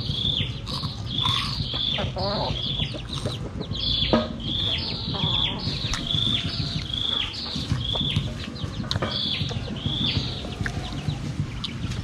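A chick peeping over and over: short, high, falling peeps at about two a second, with a brief pause about three seconds in.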